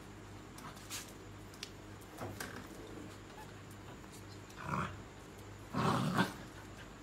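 A dog growls twice during a scuffle with another dog that is mounting it, a short growl about two thirds of the way through and a longer, louder one near the end.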